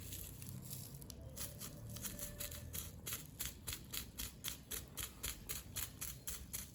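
Paintbrush stroked rapidly back and forth over bubble wrap, spreading paint: faint, scratchy swishes at about four a second, starting about a second in.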